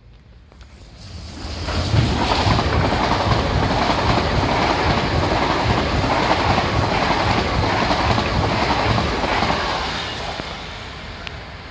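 An LNER Class 800 Azuma train passes close alongside the platform. The running noise of its wheels and carriages builds about a second in and holds loud and steady. It then fades as the rear cab goes by near the end.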